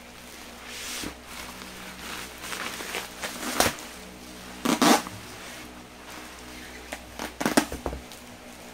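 Bubble wrap rustling and crinkling as it is cut with scissors and pulled off a cardboard box, in several irregular bursts, the loudest about halfway through and another near the end. A steady low hum runs underneath.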